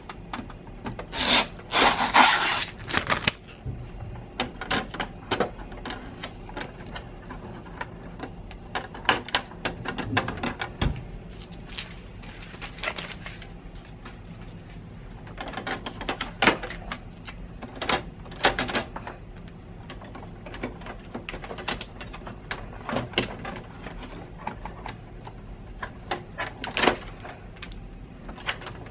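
Blue shipping tape being peeled off a new Epson EcoTank ET-2720 inkjet printer, with irregular clicks and knocks of its plastic lid, panels and trays being handled. The louder rustling is about one to three seconds in.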